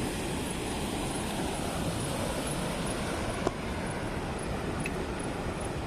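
Steady outdoor rushing noise with a faint regular high-pitched ticking over it and a single faint click about three and a half seconds in.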